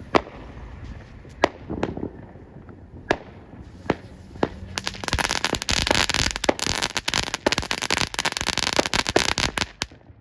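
Small consumer fireworks going off: a few separate sharp bangs over the first four seconds or so, then a dense crackling run of rapid pops lasting about five seconds that stops near the end.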